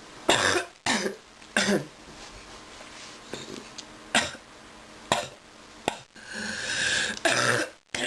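A sick person coughing repeatedly: short, separate coughs a second or more apart, with a longer drawn-out sound about six seconds in.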